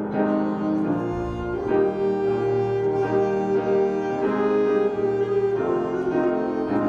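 Instrumental music of bowed strings and piano, sustained notes changing every second or so.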